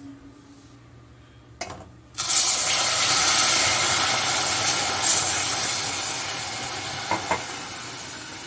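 Water poured from a glass into a hot metal pan, hissing and sizzling into steam. The hiss starts suddenly about two seconds in, is loudest at first, then slowly dies down.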